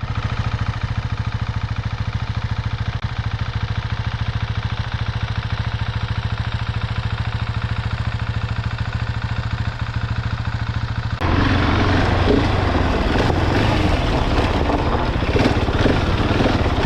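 Husqvarna 701 Enduro's single-cylinder engine idling with a steady, rapid even beat. About eleven seconds in, it gives way abruptly to a louder, rougher engine sound with a rushing noise over it.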